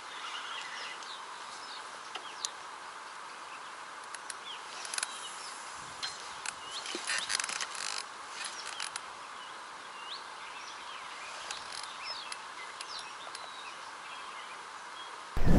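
Small birds chirping now and then over a steady outdoor hiss, with a cluster of light clicks and taps about halfway through.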